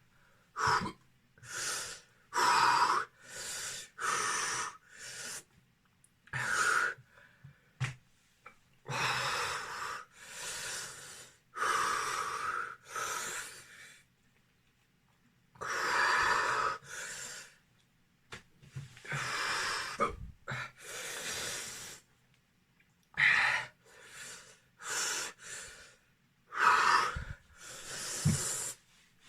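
A man breathing hard through his mouth, with repeated wheezing and gasping breaths, some short and some a second or two long, and a couple of brief pauses. This is the sound of someone reacting to the burn of a very spicy hot pepper.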